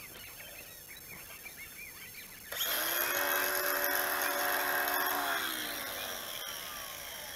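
Angle grinder switched on about two and a half seconds in, its motor whining at a steady pitch for about three seconds, then switched off and spinning down with a falling whine.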